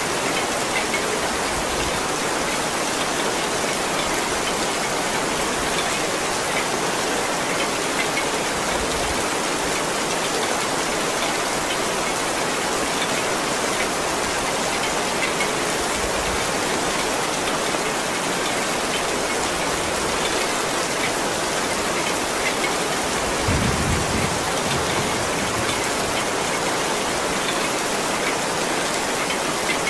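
Heavy rain falling steadily, a dense even hiss of drops. A brief low rumble comes about three-quarters of the way through.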